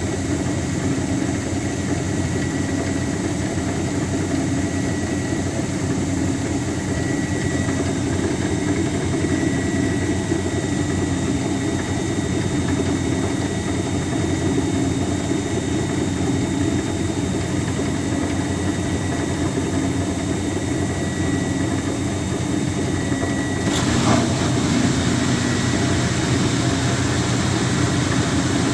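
Speed Queen TR-series top-load washer running with a steady knocking, clanking noise: play in the drive pulley, whose nut has loosened on the shaft. About 24 seconds in there is a sharp click, after which it runs a little louder.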